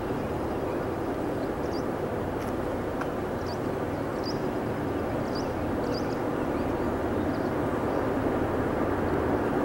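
Distant rumble of the Maryland Midland's EMD GP38-3 diesel locomotives working at full throttle up the grade, growing louder as the train approaches.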